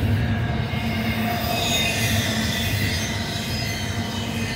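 Double-stack intermodal well cars rolling past on the mainline: steady low rolling noise from the wheels with thin, high-pitched wheel squeal over it.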